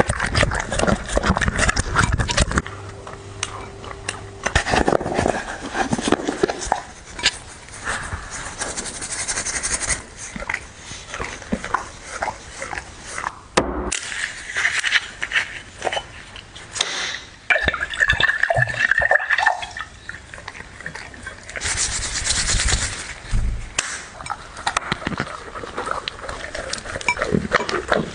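A dog eating noisily: a long run of quick wet clicks from chewing and lapping.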